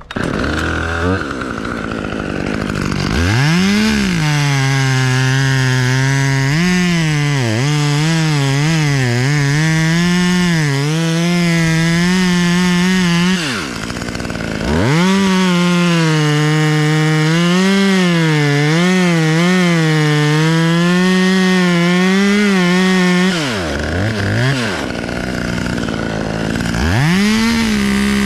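Two-stroke chainsaw revving up and cutting into white pine, its engine pitch sagging and wavering under load. About 13 seconds in and again near the end it drops back toward idle, then revs up again.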